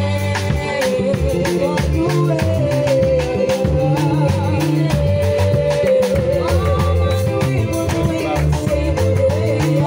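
Live band jamming: electric bass guitar, drum kit and electronic keyboards, with a woman's voice singing a wavering melody over them.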